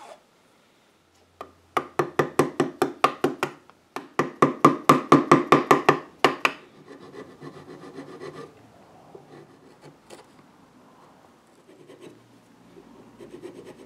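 Carving gouge paring a glued-in wooden patch in quick short cuts, about five or six a second, in two runs of about two seconds each. Softer scraping of the tool on the wood follows.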